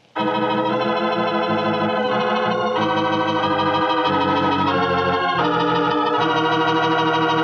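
Organ playing sustained chords as a radio-drama music bridge closing the act before the commercial break; the chords change every second or so, then hold on a final chord over the last second or more.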